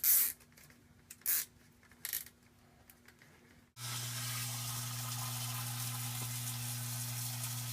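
Three brief rasps, then, a little under four seconds in, a newly installed sump pump starts running: a steady electric-motor hum with water rushing and splashing in the sump pit.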